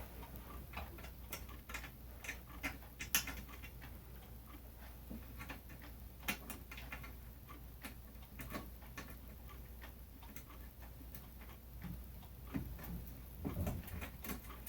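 Faint, irregular small clicks and taps of screws with lock washers being worked into a ceiling fan's metal motor housing.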